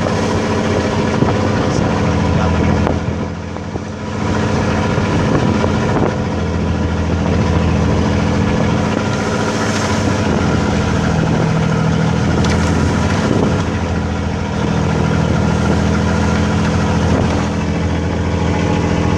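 A boat's engine running steadily, a constant low drone, with a brief dip in loudness about three seconds in.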